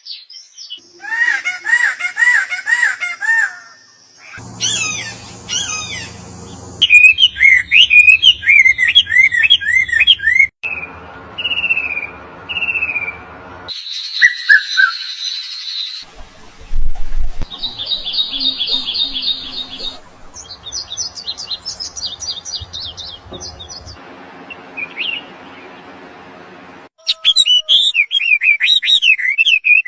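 A run of short, separate clips of birds chirping and whistling, each a few seconds long with its own repeated call pattern, switching abruptly from one to the next.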